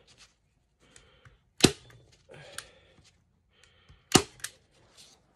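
Manual staple gun driving staples through a beaver pelt into a plywood stretching board: two sharp snaps about two and a half seconds apart, with fainter clicks and rustling of the hide between.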